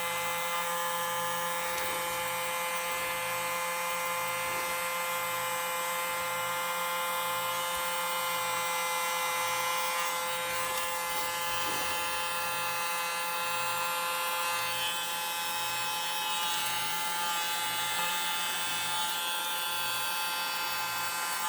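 Miniature handheld hair dryer running steadily, a high, even motor whine, blowing wet acrylic pour paint to spread a bloom.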